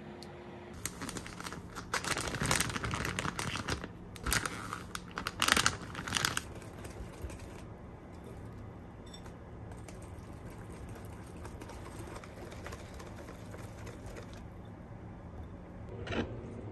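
Plastic bag of pancake mix crinkling in bursts for several seconds as it is handled and the mix is shaken out into a glass mixing bowl, then quieter.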